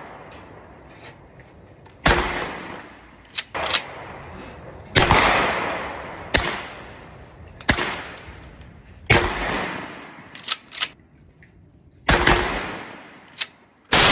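GForce Arms 12-gauge pump-action shotgun firing: four loud shots a few seconds apart, each with a long echoing decay. Between the shots come shorter sharp clicks, some in quick pairs, from the pump being worked to chamber the next shell.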